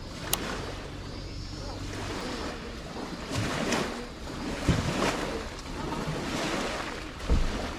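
Steady rush of wind with lake water lapping at the shore, and two low thumps, one near the middle and one near the end.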